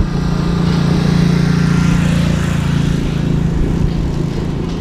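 Motor vehicle engine running close by in traffic, a steady low hum that swells about a second in and eases off toward the end.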